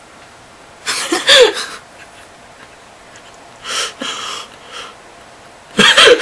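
Short breathy vocal reactions from people, three bursts: the loudest about a second in, another about four seconds in and one near the end.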